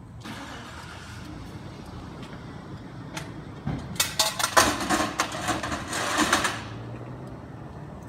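A vehicle engine cranking and starting: a loud, fluttering burst for about three seconds from midway, over a low steady engine rumble.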